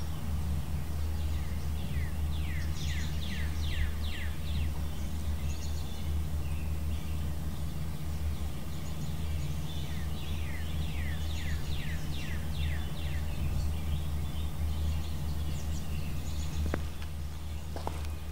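A songbird sings runs of quick down-slurred whistled notes, two phrases of about eight notes each, over a steady low outdoor rumble. A couple of footsteps sound near the end.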